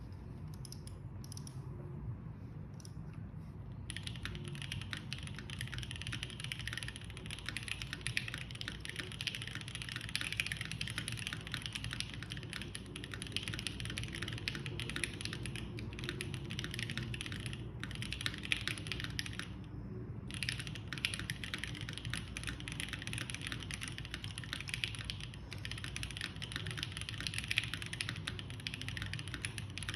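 Typing on a Keycult No. 1 Rev. 2 mechanical keyboard with lubed JWK Alpaca linear switches, a polycarbonate plate, a gasket mount and GMK keycaps. A few scattered keystrokes come first; from about four seconds in the typing runs fast and continuous, with a brief pause a little before twenty seconds.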